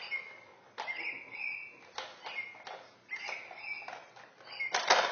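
Plastic ball-in-track cat toy knocked about by a puppy's paws: a few sharp plastic knocks, the loudest near the end, with rattling between them as the ball runs in its track.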